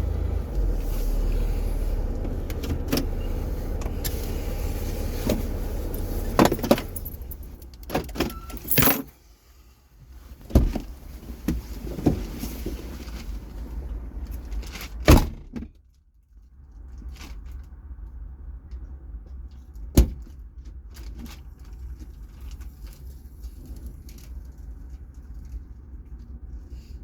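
Vehicle running, with jingling and rattling metal and a series of sharp clanks and knocks. The sound is louder in the first half and quieter after a brief drop about 16 seconds in.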